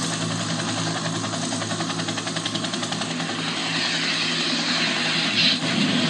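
Music playing through a compact Oase S3 Bluetooth soundbar speaker as a sound test. It starts abruptly as a dense, droning wall of sound, and a sweep rises in pitch over the last few seconds.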